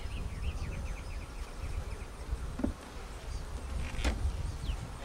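Honey bees buzzing around an opened hive, with two sharp knocks from the wooden frames and hive tool being handled: a smaller one about two and a half seconds in and a louder one about four seconds in.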